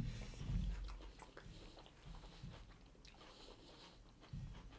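Faint close-up eating sounds: soft chewing and mouth noises of people eating warm chocolate lava cake with ice cream off spoons, with a dull thump right at the start and a few small clicks.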